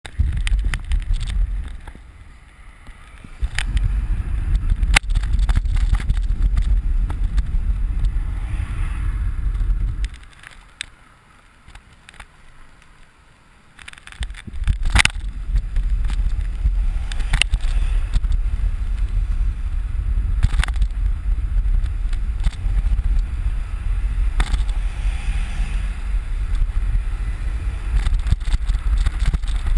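Wind buffeting the microphone of an action camera on a moving bicycle, a loud low rumble that drops away briefly about two seconds in and for about four seconds in the middle as the bike slows. Sharp clicks and knocks from bumps and rattles cut through it, the loudest just after the quiet stretch.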